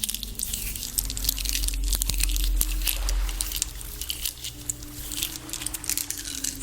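Strings of fake plastic pearls handled close to the microphone, the beads clicking and rattling against each other in quick crackly runs, over a low steady hum.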